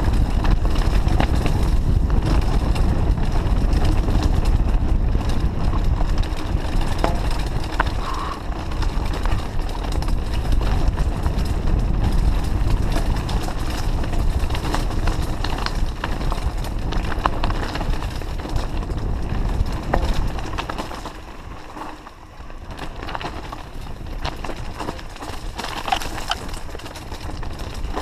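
Trek Fuel EX 8 full-suspension mountain bike descending loose rocky singletrack: steady wind rush on the microphone, with the tyres crunching over stones and the bike rattling and clattering. The rush eases a little about twenty seconds in.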